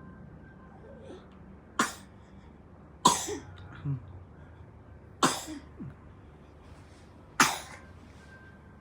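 A baby with a slight cough coughing four times, about two seconds apart, a couple of the coughs followed by a smaller second one.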